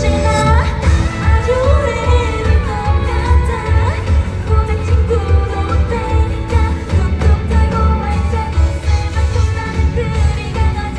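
A live pop-rock band plays with drums, bass and electric guitar under a woman singing lead.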